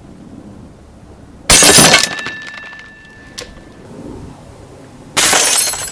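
Two crashes of cut-glass wine glass shattering under air-rifle pellet hits, one about a second and a half in and one near the end. The first leaves a high ringing tone that fades over about two seconds.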